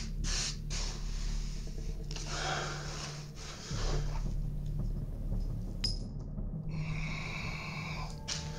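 Close breathing through the nose and the rustle of gloved hands wiping dust off a hard surface, over a low steady drone.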